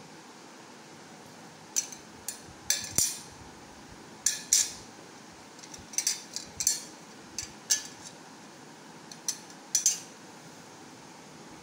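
Tinplate toy dessert plates clinking against one another as they are handled and stacked: a dozen or so light metallic clinks, some in quick pairs, each with a short ring, starting about two seconds in and ending near the end.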